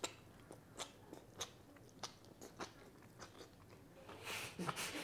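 A person chewing a mouthful of stir-fried vegetables, with faint, scattered crunches.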